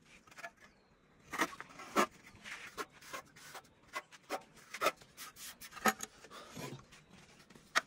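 A hand tool scraping and rubbing cement plaster on a wall in short, irregular strokes, some sharper and louder than others.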